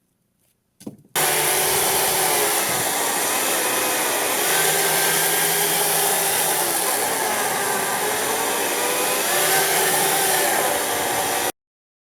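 Chainsaw cutting oak firewood. Its engine pitch dips and recovers several times as the chain works through the wood. It starts abruptly about a second in and cuts off just before the end.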